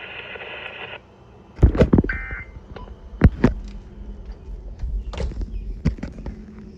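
Steady radio hiss that cuts off about a second in, followed by several sharp clicks and knocks, a short electronic beep just after two seconds, and a low rumble.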